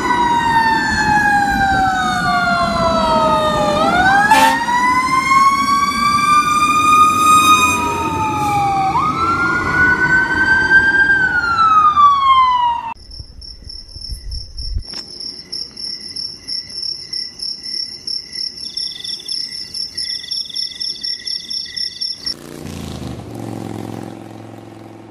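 Emergency vehicle sirens wailing, several overlapping and gliding up and down in pitch over a low rumble. About thirteen seconds in they cut off and a fast, even, high-pitched electronic pulsing follows, then a short low hum near the end.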